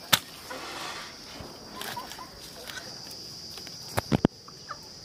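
A cleaver chopping through a large catfish onto a wooden log block: one sharp chop just after the start, then three quick chops close together about four seconds in. Insects trill steadily in the background.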